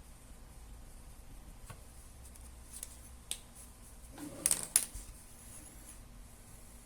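A few scattered sharp clicks over a faint low hum, with a quick cluster of louder clicks about four and a half seconds in.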